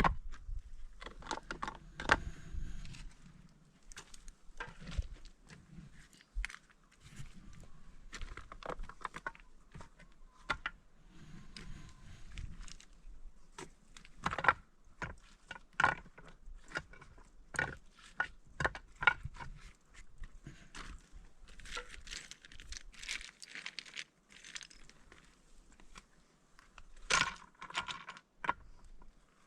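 Irregular clicks, knocks and scrapes with some rustling, a louder cluster of knocks near the end.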